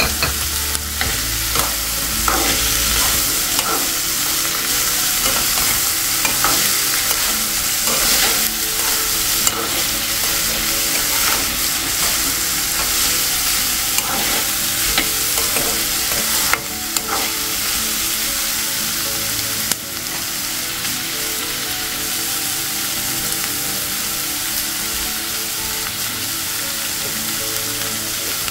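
Chopped okra, brinjal, ivy gourd and green chillies sizzling in hot oil in a kadai. A metal spoon stirring them scrapes and clicks against the pan through the first half or so, leaving a steady sizzle later on.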